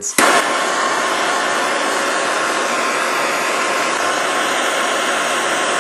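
Handheld plumber's gas torch burning with a steady hissing rush of flame, which starts with a sharp click just after the beginning.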